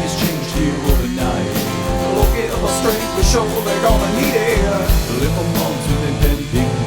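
A rock song with guitar and a steady drum beat.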